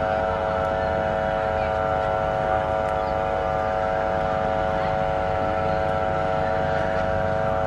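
An Indian electric locomotive's air horn sounding one long, steady chord of several tones as the train approaches, over the low rumble of the train.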